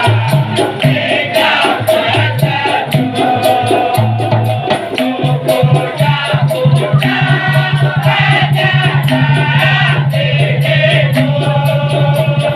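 Dikir barat music: a group of voices singing in unison over a fast, even shaker rhythm of maracas and other percussion.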